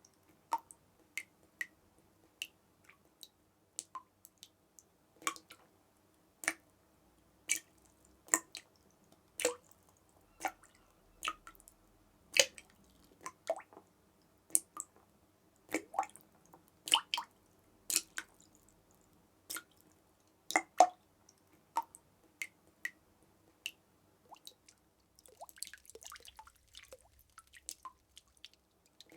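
Water drops dripping in an irregular pattern, one or two sharp plinks a second, some much louder than others. A faint crackle comes in briefly near the end.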